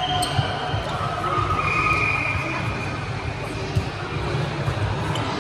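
Athletic shoes squeaking on the sports hall's court floor over a steady hall hum, with a sharp volleyball hit about four seconds in.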